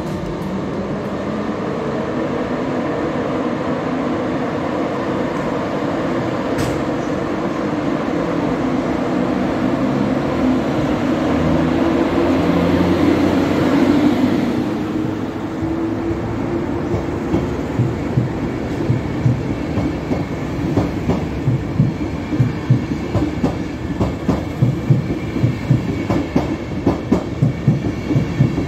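A Dutch NS electric locomotive of the 1600/1700/1800 family passing along the platform, its running noise building to a peak as it goes by about 14 seconds in. It is followed by its passenger coaches rolling past with a regular clickety-clack of wheels over rail joints, which comes faster toward the end.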